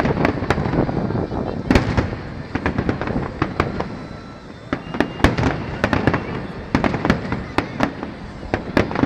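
Fireworks display: aerial shells bursting in a rapid, irregular string of sharp bangs and cracks, several a second, over a steady rumble.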